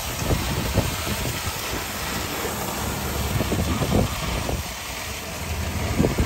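A wooden sponge boat's engine running steadily while underway, under a steady rush of wind and water, with irregular gusts of wind buffeting the microphone.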